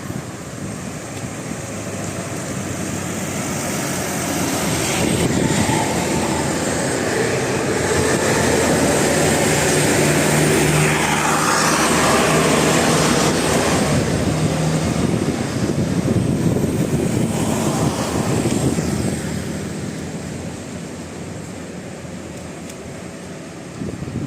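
A bus passing by, its engine and tyre noise swelling to a peak about halfway through and then fading away.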